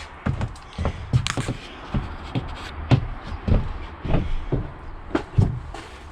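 Irregular knocks and thuds with rustling, about two a second and uneven: a person moving about and handling things.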